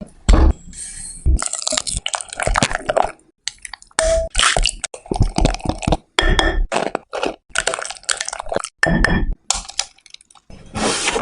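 Kitchen food-preparation sounds from cake making: a string of short wet squishes, drips and clinks of utensils on dishes, each starting and stopping abruptly with brief silent gaps between.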